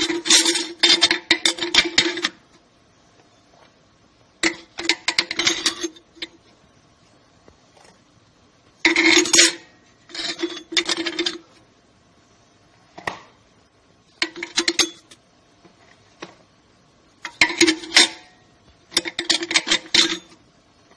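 Steel clutch plates and friction discs of an automatic transmission's low and reverse brake clutch pack clinking and rattling against each other and the transmission case as they are set in and worked into line by hand. The clinking comes in about seven short bursts with a metallic ring and quiet gaps between them.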